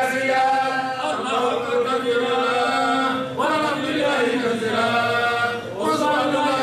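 A voice chanting in long held notes, each phrase breaking and changing pitch about every two and a half seconds.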